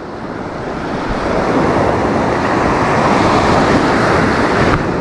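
Ocean surf washing onto a beach, a steady rushing noise that swells over the first second or two.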